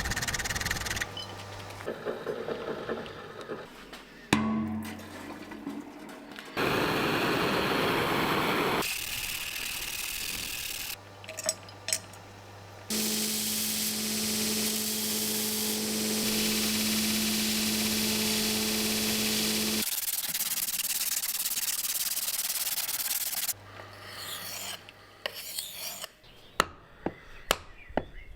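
Quick cuts of abrasive work on steel: grinding, filing and sanding sounds. In the middle there is a long stretch of steady grinding over a constant motor hum, typical of a belt grinder. Near the end comes a run of light taps and clicks.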